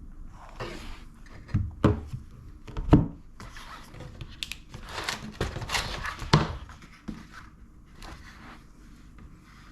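Packaging being handled during the unboxing of an Epomaker TH80 Pro keyboard: irregular crinkling and rustling with a few sharp thumps, the loudest about three seconds in.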